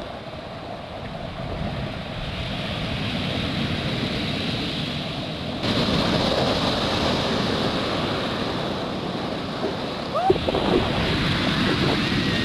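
Ocean surf with wind buffeting the microphone: a steady rushing roar that builds, then jumps suddenly louder about six seconds in. Near the end come a few faint, brief shouts.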